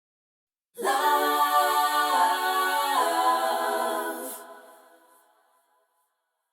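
A cappella vocal harmony: several voices come in together a little under a second in, hold a chord that shifts twice, then fade away over the next two seconds.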